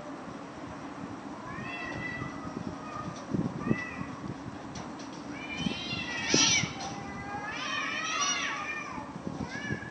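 Cat meowing and yowling: about five drawn-out calls that rise and fall in pitch, the loudest about six seconds in and a longer wavering one around eight seconds in.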